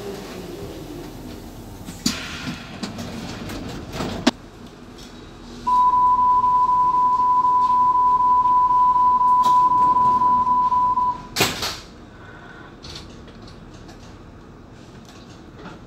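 Hamburg U-Bahn DT3-E train coming to a stop, its motor whine falling away, then two short sharp noise bursts. About six seconds in, a steady high beep sounds in the cab for about five and a half seconds, followed by another brief burst of noise.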